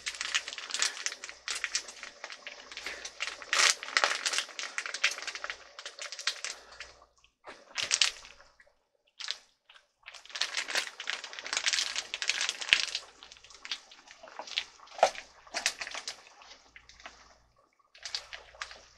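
Pot of Thai yellow chicken curry broth simmering in a stainless steel stockpot, bubbling and crackling in irregular bursts. The sound drops out briefly about eight seconds in and again near the end.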